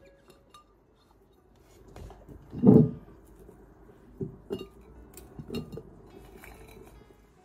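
A glass jar set down on a kitchen countertop with a single heavy knock about two and a half seconds in. Several lighter knocks and clinks follow as wafer biscuits are dropped into the glass jar.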